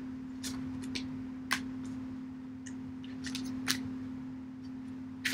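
Tarot cards being handled and shuffled: a few short, crisp card flicks and taps at irregular moments, over a steady low hum.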